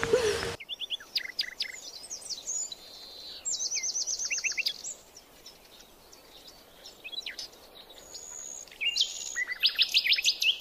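Several small birds calling and singing: high chirps and quick runs of repeated notes, busiest around the middle and again near the end. A steady hiss cuts off just after the start.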